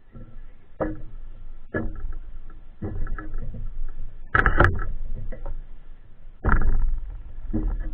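Wind buffeting a GoPro's microphone as the camera spins on a turning ceiling fan. The gusts come every second or two over a low rumble, with the strongest about halfway through.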